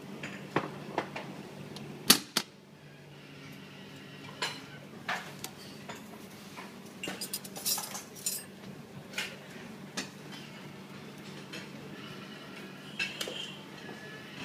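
Dishes and serving utensils clinking and knocking in scattered single strikes, the loudest about two seconds in and a cluster around seven to eight seconds in, over a steady low hum.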